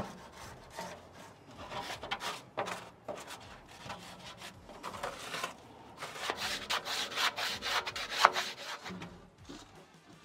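Plastic trowel scraping caked grease and ash inside the cooking chamber of a Char-Griller Grand Champ offset smoker, in quick irregular scratchy strokes that get louder past the middle, with one sharp clink about eight seconds in.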